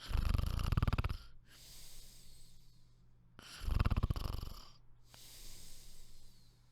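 Snoring: two loud, rattling snores, each a drawn-in breath about a second long followed by a softer, breathy out-breath.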